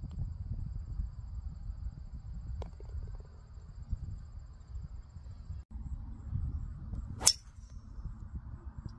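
A single sharp crack of a driver striking a golf ball off the tee, about seven seconds in, the loudest sound, over a low rumble. Crickets chirp steadily in the first half.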